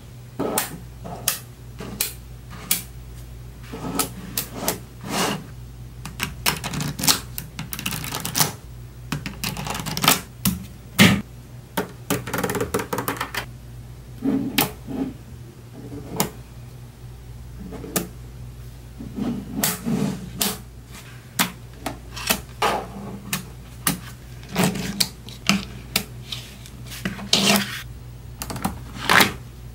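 Small neodymium magnet balls (Neocube) clicking and snapping together as they are pressed into blocks and stacked, in irregular sharp clicks and short rattling clusters.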